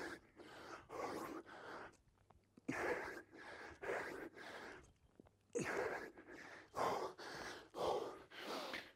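A man panting heavily from hard exercise: a run of quick, loud breaths in and out, broken by two short pauses.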